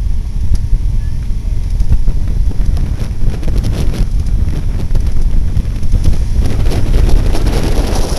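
Wind buffeting the microphone in a heavy, fluttering low rumble, with a spatter of light crackles through the second half.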